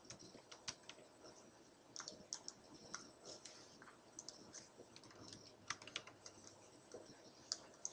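Faint, irregular clicks and taps at a computer: keys and mouse buttons being pressed, several in quick clusters.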